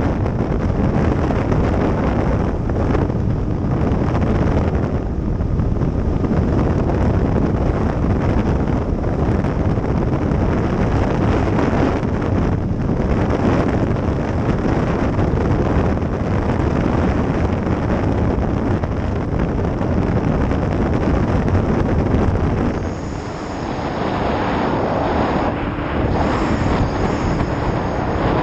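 Heavy wind rush on the microphone over a Yamaha XT-225's single-cylinder four-stroke engine, the motorcycle cruising steadily at road speed. About two-thirds of the way through the wind eases for a moment and a steady engine note comes through more clearly.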